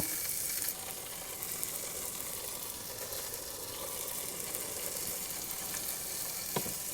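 Bologna slices sizzling steadily as they fry in a pan, with one short click near the end.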